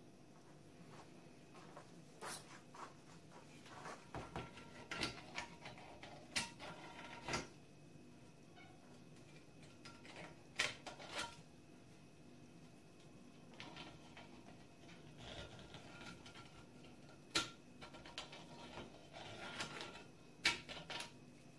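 Hand deburring of a freshly machined exhaust manifold flange: irregular light scrapes and clicks of a deburring tool along the port edges, with the metal part knocking and shifting on a steel bench. A few sharper knocks stand out about halfway through and near the end.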